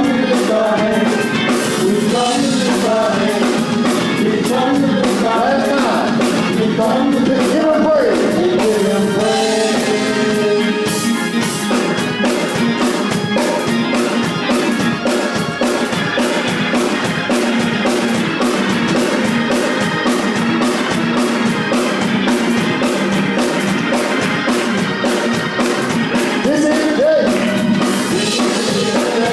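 Worship music: a band with drums keeping a steady beat, with singing that is strongest in the first ten seconds and comes in again near the end.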